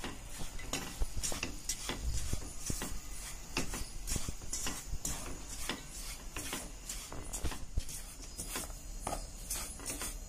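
Spatula scraping and stirring wheat flour as it roasts in ghee in a non-stick kadai: a continuous run of irregular scrapes, several a second. The flour is being dry-roasted until it turns brown.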